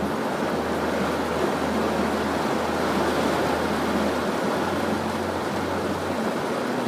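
Heavy rain falling steadily, a dense even hiss, with a faint low hum underneath that fades in and out.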